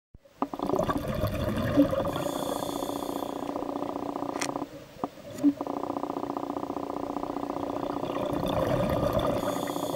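Scuba diver's breath bubbling out through the regulator exhaust as a rumbling, rapidly pulsing buzz: two long exhalations with a short break about halfway.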